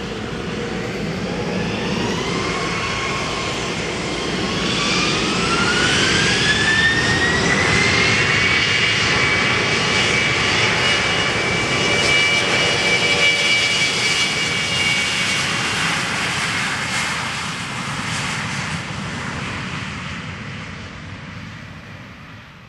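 Twin turbofan engines of a Virgin Blue Embraer E-Jet spooling up for takeoff: a whine rises in pitch over a few seconds, then holds steady at takeoff power over a loud rushing noise as the jet rolls down the runway, fading near the end.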